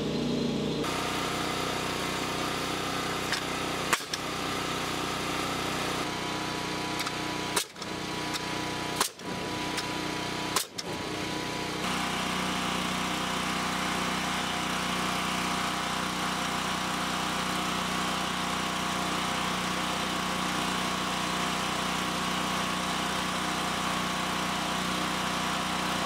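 An engine running steadily at a constant speed, with a sharp click about four seconds in and a few brief dropouts in the sound between about eight and eleven seconds.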